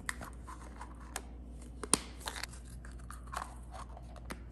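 Hollow plastic Easter egg halves clicking and tapping as they are handled and snapped shut, a few sharp clicks spread over several seconds, the loudest about two seconds in.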